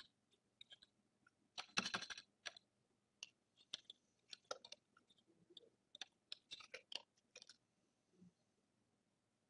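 Light, irregular clicks and taps of a computer keyboard and mouse: a quick run of clicks about two seconds in, then scattered single clicks and short bursts, stopping a couple of seconds before the end.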